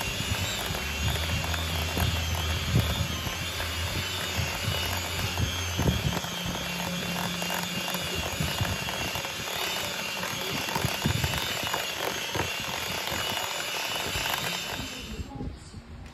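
Black+Decker electric hand mixer running steadily with a high motor whine, its beaters churning cream cheese in a stainless steel bowl to soften it. It switches off about a second before the end.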